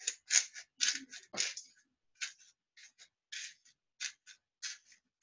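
Pepper being sprinkled over the dish: a run of short, dry rasping bursts at uneven intervals, with one light knock about a second and a half in.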